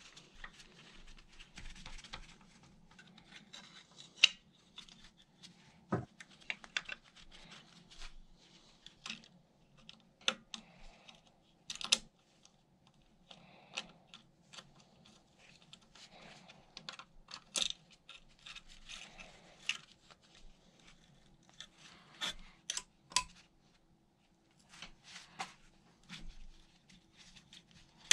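Irregular metal clicks, taps and scrapes of an Allen key being fitted and turned in the bolts of an e-scooter's rear wheel mount, with gloved hands handling the parts. A few of the clicks are sharper.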